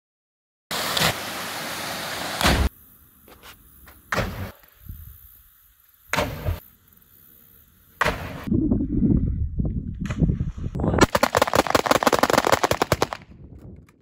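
Airsoft rifles firing on full auto: a fast, even rattle of shots lasting about two and a half seconds near the end. Earlier, a steady rush of noise that cuts off with a thud, then a few scattered knocks.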